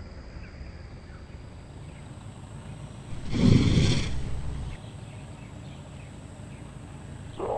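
Asian elephant giving one loud, rough roar about three seconds in, lasting under a second, over a steady low outdoor background.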